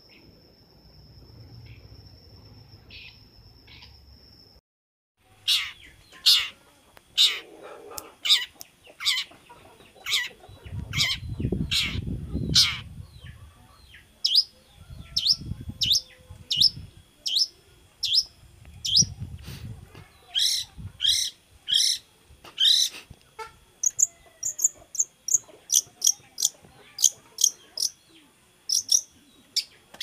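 Caged songbird calling over and over with loud, sharp notes that sweep downward in pitch, about one or two a second, quickening and rising near the end. The first few seconds are only faint hiss with a steady high tone, and a few low rumbles come between the calls.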